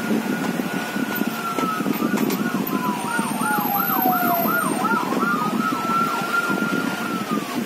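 Emergency vehicle siren: a long wailing tone that slowly falls and then rises again, with a fast yelping warble of about three sweeps a second over the middle of it.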